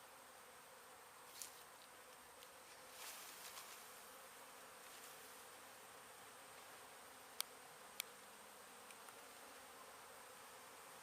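Faint steady buzzing of many honey bees around an opened hive. Two sharp clicks half a second apart come a little past the middle.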